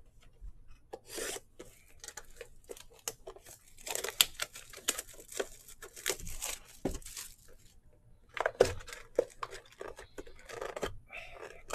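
Plastic shrink-wrap being torn and peeled off a cardboard box of football cards, crackling and crinkling in short bursts, in two busy spells, the second starting about eight and a half seconds in.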